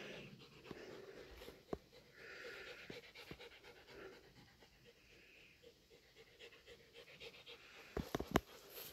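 Faint panting, with a sharp click early on and two sharp knocks close together near the end.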